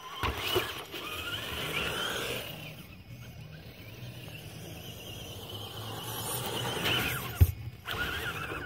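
Small electric RC rock crawler whining through its geared transmission, the pitch rising and falling with the throttle, with a sharp knock about seven seconds in.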